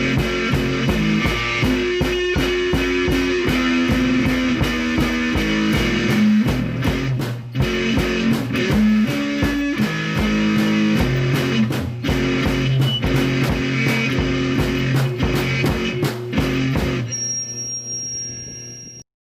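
Guitar music with a steady beat, fading out near the end.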